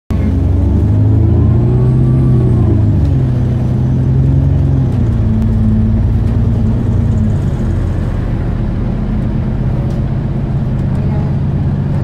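Alexander Dennis Enviro400 double-decker bus running, heard from inside the passenger saloon. Its engine and drivetrain make a steady hum with a pitched whine that rises and falls over the first few seconds, then settles into a steadier drone. This is the strange noise whose cause the uploader could not work out.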